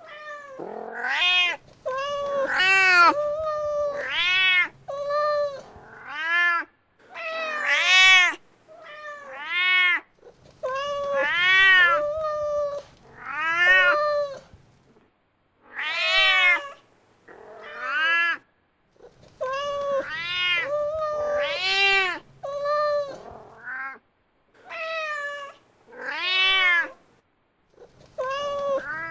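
Mother cat calling for her kitten: a long series of meows, about one a second with short pauses between, most rising and then falling in pitch, some held flatter and longer.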